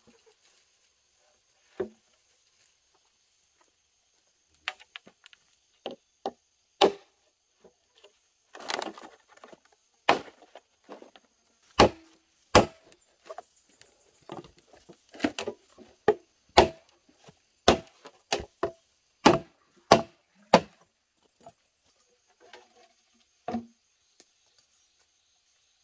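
Machete chopping into a green bamboo pole: a run of sharp, irregular blows, sometimes two in quick succession, thickest from about five to twenty-one seconds in.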